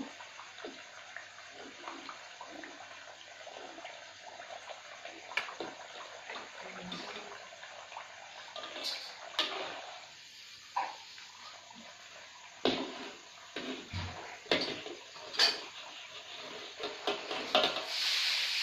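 Fritters deep-frying in a wok of hot oil, a steady sizzle, with a metal spatula knocking and scraping against the wok as the pieces are turned and lifted out; the sharper knocks come in the second half.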